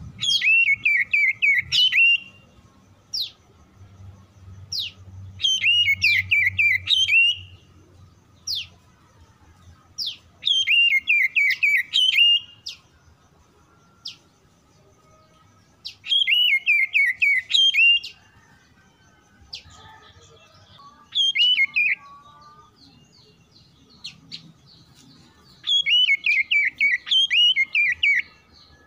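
Oriental magpie-robin song: loud whistled phrases, each a sharp rising note followed by a quick run of falling whistles, repeated about every five seconds, with single sharp upward notes in between.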